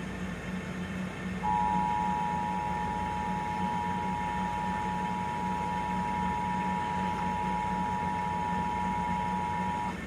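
Emergency Alert System two-tone attention signal: two steady tones sounded together. It starts about a second and a half in, holds for about eight seconds and cuts off just before the end, over a low steady hum.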